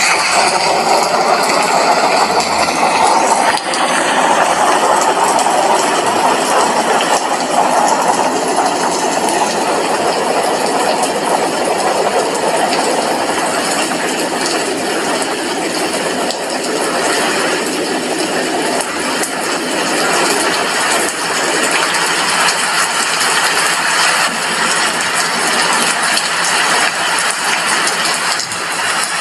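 Heavy rain falling steadily on a glass window, a dense even hiss of drops.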